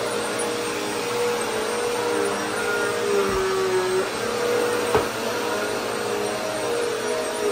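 Upright bagless vacuum cleaner running on carpet, its steady motor whine shifting slightly in pitch as it is pushed back and forth. A sharp knock about five seconds in.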